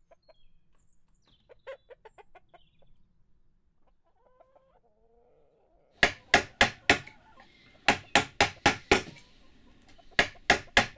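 Wooden carver's mallet striking a chisel into oak: runs of sharp knocks, about five a second, starting about six seconds in, with short pauses between the runs. Before the knocks there are only faint sounds.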